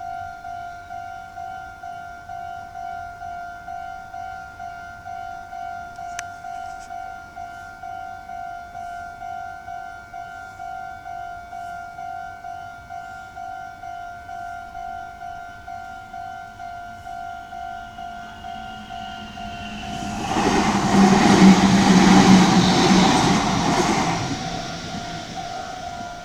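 Japanese level crossing's electronic warning bell ringing in an even repeating ding, about two a second. About twenty seconds in, a Meitetsu train passes for about four seconds, the loudest sound, with the bell still ringing behind it.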